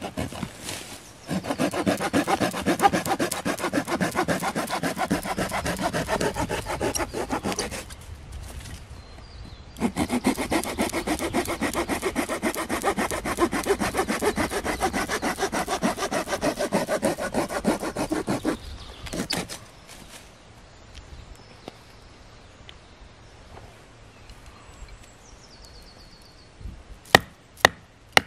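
A small hand saw cutting through a dead branch in two long bouts of quick back-and-forth strokes, with a pause of about two seconds between them. Near the end, three sharp knocks as a knife blade is driven into a short log section.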